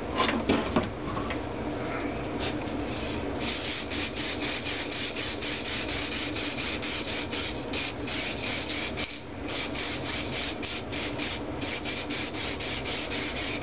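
Aerosol spray paint can hissing in many short bursts as silver paint is sprayed onto an aluminium engine block, over a steady low hum. A brief knock near the start.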